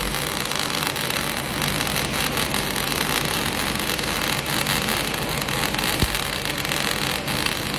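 Welding arc crackling and hissing steadily, with a faint thump about six seconds in.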